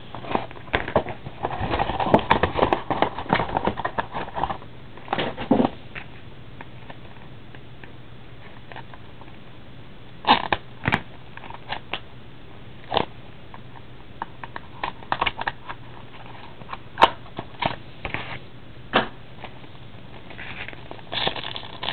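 Trading-card box and pack packaging handled by hand: a burst of crinkling and rustling for the first five seconds or so, then scattered sharp clicks and taps as a wrapped pack is set down and worked open, with more crinkling near the end.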